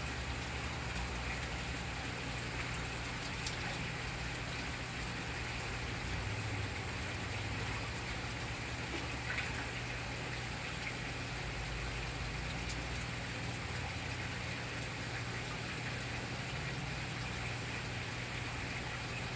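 Steady trickling, splashing water with a low, even hum under it: an aquarium's circulating water and pumps running.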